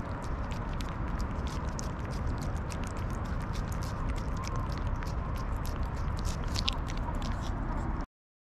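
A calico cat licking and smacking at a lickable paste treat squeezed from a tube, right at the microphone: quick, wet, irregular clicks over a steady low background noise. The sound stops abruptly near the end.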